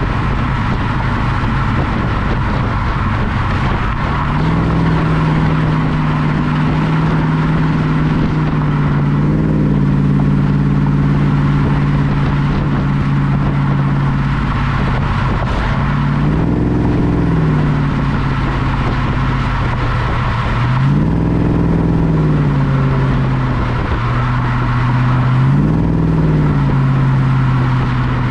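1967 Chevelle's LS1 5.7-litre V8 under way, its exhaust drone steady, stepping up in pitch about four seconds in and then rising and falling briefly several times as the throttle is pressed and eased. Tyre and wind noise run underneath, heard from a microphone mounted outside the car by the wheel.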